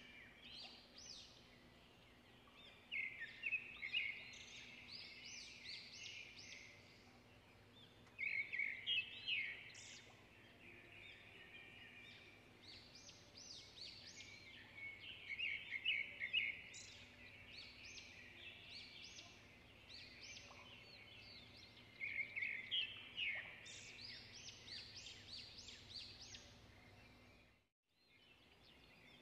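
Songbirds chirping and singing in bursts of quick notes every few seconds, over a faint steady hum. The sound cuts out briefly near the end.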